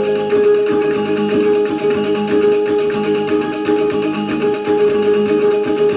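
Kulintangan music: a row of small tuned gongs struck in a quick repeating pattern over a held, ringing gong tone.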